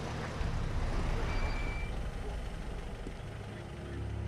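Car engine and road rumble as the car slows to a stop, with a short high steady tone about a second and a half in. Low sustained music tones come in near the end.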